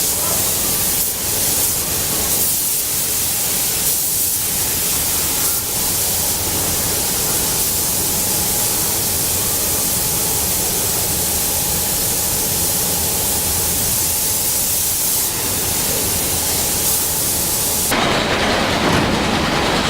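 Steady hissing noise of car-factory production-line machinery, with a faint steady tone running through it. About 18 seconds in it changes abruptly to a duller, louder rushing sound.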